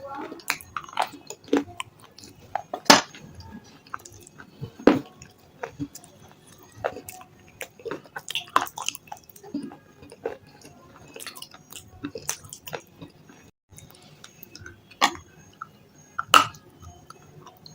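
Person biting and chewing hard, crunchy chips of red sale stone, a chalky edible clay, up close. The sharp crunches come irregularly, every second or two, with softer chewing between them.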